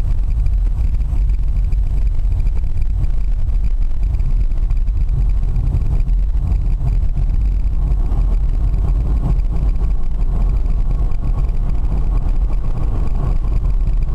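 Steady in-cabin driving noise of an electric-converted BMW: a loud, even low rumble of road and wind, without a break.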